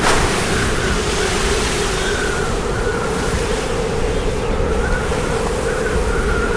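Storm wind blowing hard, a steady rushing roar with a low howl and a wavering higher whistle. There is a brief gust right at the start.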